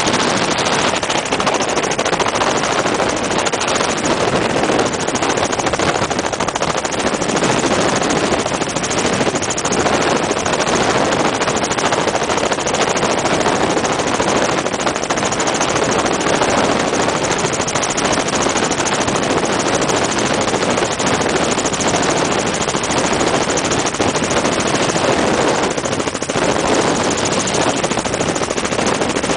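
Helicopter in flight heard from inside the cabin: a loud, steady mix of engine and rotor noise with rushing wind and a fast flutter.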